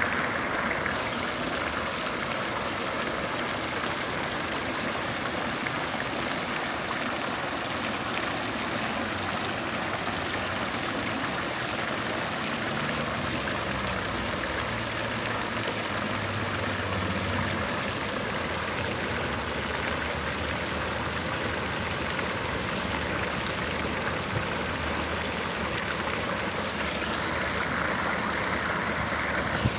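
Water fountain jets spouting and splashing down into the basin in a steady rush.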